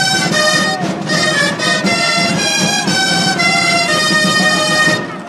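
Festive music: a single wind instrument plays a melody of held notes with a bright, reedy tone over a steady low accompaniment. It stops just before the end.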